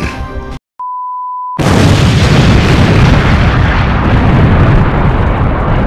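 A steady high beep lasting under a second, then a loud explosion that starts suddenly and rumbles on for several seconds, slowly fading.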